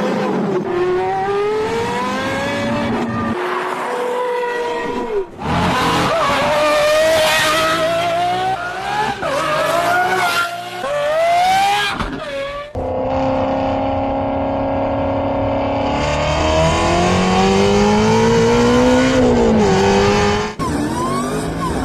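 Performance car engines revving hard and accelerating, their pitch climbing and dropping back again and again with gear changes, across several spliced clips that change abruptly.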